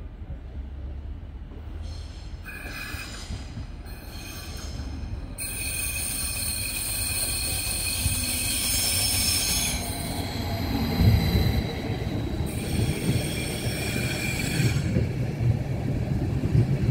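Stadler FLIRT electric multiple unit pulling into the platform, slowing, with a high-pitched squeal of several tones coming and going, strongest in the middle. A low rumble grows louder in the second half as the train rolls close past.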